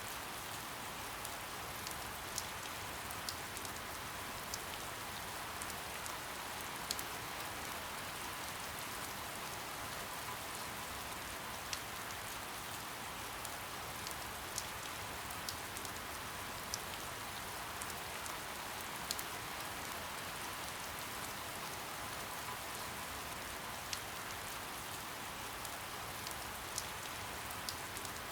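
Steady soft rain: an even hiss of rainfall with single heavier drops ticking sharply every second or two.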